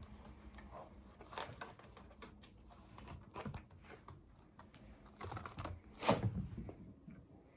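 Kitten playing loose in a small room: irregular scratching and rustling with a few light knocks, the loudest about six seconds in.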